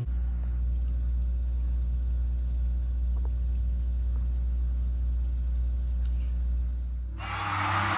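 A steady low rumble with nothing else above it. About seven seconds in, it gives way to a rushing hiss.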